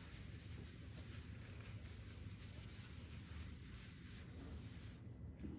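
Felt chalkboard eraser rubbing across a blackboard in quick, repeated back-and-forth strokes, a soft scrubbing hiss that stops about five seconds in.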